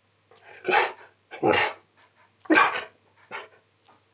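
Husky 'talking': three short, loud bark-like calls about a second apart, then a fainter one near the end.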